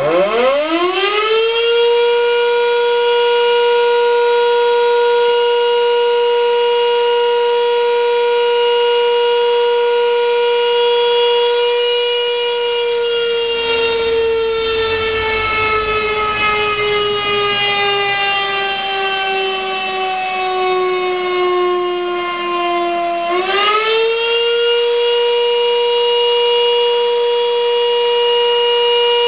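Sachsenwerk electromechanical motor siren sounding the fire-alarm signal. It winds up to a steady tone within about two seconds and holds it for about twelve seconds. Then, with the motor cut, it slowly falls in pitch, and about twenty-three seconds in it is switched on again and rises quickly back to the full steady tone.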